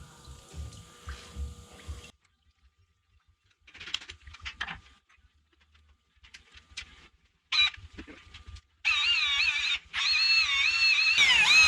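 Electric drill spinning a brass wire wheel brush against the freeze plug bore of a cast-iron engine block, cleaning it out. It runs in short bursts, then steadily with a whine that wavers as it loads up and dips briefly near the end.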